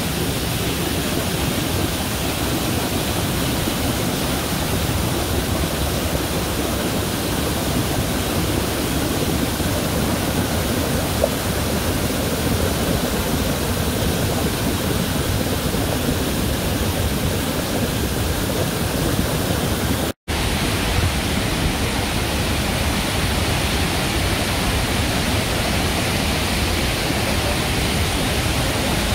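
Iguazu Falls: the steady rush of falling water, dropping out for an instant about two-thirds of the way through, then carrying on unchanged.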